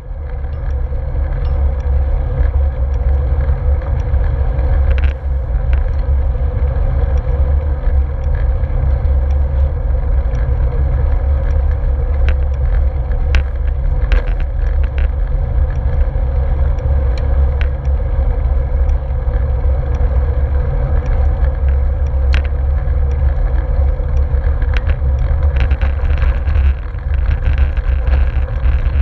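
Wind buffeting a handlebar-mounted GoPro on a moving bicycle, a heavy low rumble mixed with the tyres rolling on a gravel path and scattered sharp ticks of grit. It fades in over the first second.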